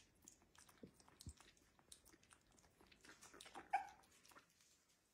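A puppy suckling food from a feeding syringe: faint wet smacking clicks, with one short high whimper about three-quarters of the way through.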